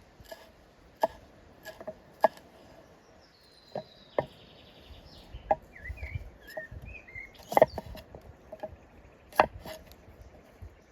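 Chopping: a blade striking wood in sharp, irregular knocks about once a second, each with a short ring. A bird chirps a few times midway.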